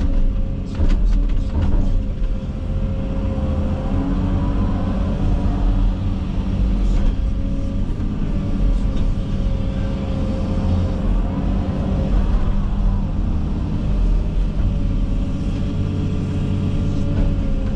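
Komatsu 360 excavator's diesel engine and hydraulics running steadily while the machine works. The pitch rises and falls twice as the machine is worked, and there are a few sharp clicks near the start.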